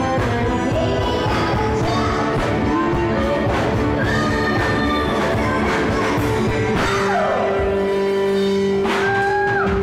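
Live rock band playing in a bar, with a woman singing into a microphone over electric guitar; a long note is held through the second half.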